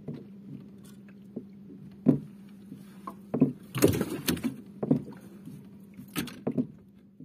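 Knocks and clunks on a fishing boat as a caught fish and gear are handled, with the loudest cluster of knocks about four seconds in, over a steady low hum.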